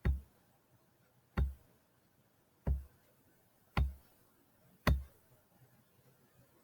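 Computer mouse clicked five times, about once every second and a quarter, each click with a dull low thump, while lines are being selected and erased in a drawing program.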